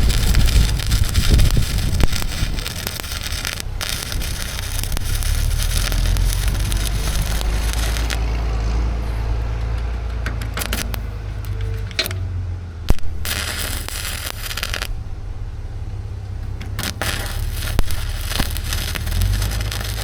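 Electric arc welding on the steel plates of a truck bed: a steady crackling sizzle of the arc along a seam over a low hum. The crackle stops twice, about eight seconds in and again around fifteen seconds in, then starts again as the welding resumes.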